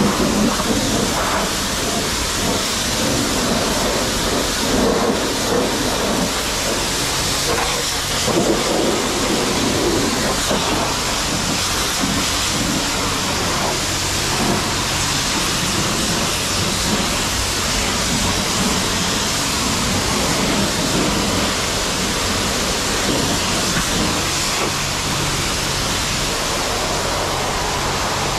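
High-pressure washer wand spraying hot rinse water onto a truck: a loud, steady hiss of spray, with a low motor hum underneath.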